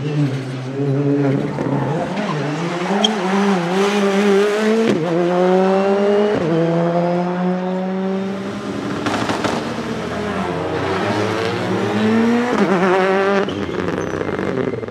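Citroën C3 R5 rally car's 1.6-litre turbocharged four-cylinder engine accelerating hard through the gears. The pitch climbs with two quick upshifts about five and six and a half seconds in, climbs again, then drops near the end.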